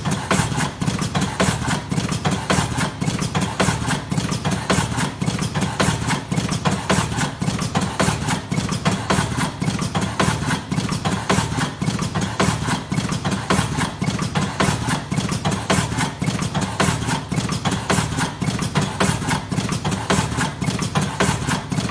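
Electric, pneumatic fully automatic cigarette rolling machine running at its 18-cartons-an-hour setting, a steady, fast mechanical clatter of rapidly repeating strokes as it presses and pushes tobacco into tubes. It starts abruptly.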